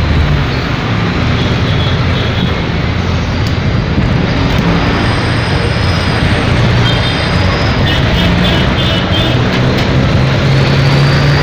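Steady vehicle engine and road traffic noise, with a low engine hum underneath.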